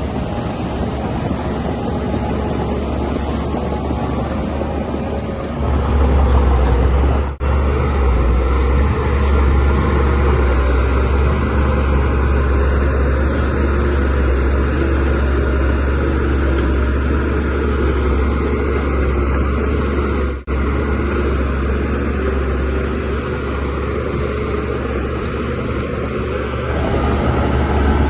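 Shantui DH17C3Pro bulldozer's diesel engine running steadily with a deep, low drone, getting louder about six seconds in. The sound drops out for an instant twice.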